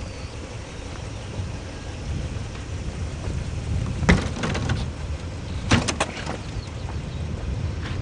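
Latch of a classic Mini's door clicking as the handle is worked, then the door opening with a few sharp clicks and knocks about two seconds later. A steady low rumble runs underneath.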